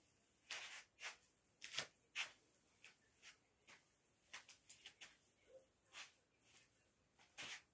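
Faint, irregular soft rustles and pats of cloth, one or two a second, as a blanket-wrapped bundle is held and rocked.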